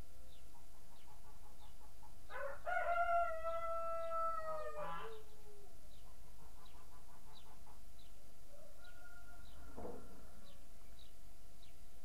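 A rooster crowing once, a long call of about two and a half seconds beginning about two seconds in, with a shorter call near the end. Faint high ticks repeat about twice a second throughout.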